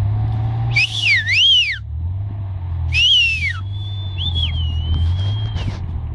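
A person whistling: a swooping up-and-down whistle about a second in, then another a few seconds in that levels off into a long held note with two short dips. Underneath is the low steady rumble of an off-road vehicle's engine as it churns through mud.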